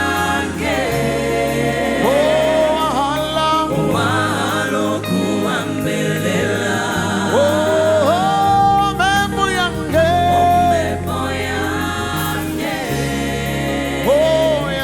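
Live gospel worship music: a lead singer's sliding, wavering vocal runs over backing singers and a band, with a steady bass line underneath.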